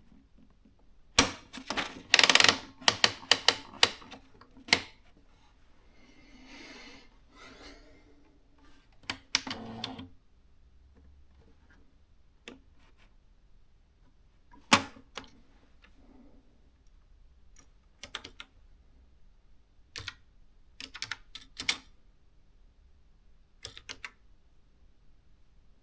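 Keys of a Canon S-60 thermal electronic typewriter clicking as it is typed on: a quick run of keystrokes at first, then scattered single strokes and short groups. A brief soft whirring from the machine comes about six to eight seconds in.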